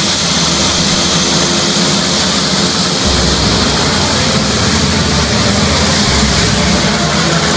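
Dornier 228's twin turboprop engines running as it taxis: a loud, steady high hiss over a low drone that grows stronger about three seconds in.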